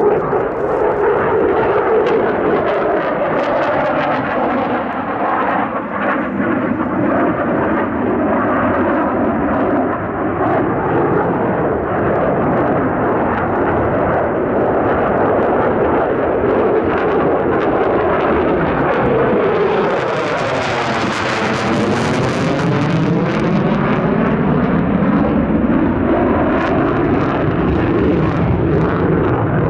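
Jet fighter's engines roaring loudly in flight. The roar swells and sweeps in tone about two-thirds of the way through as the jet passes closest, then cuts off abruptly at the end.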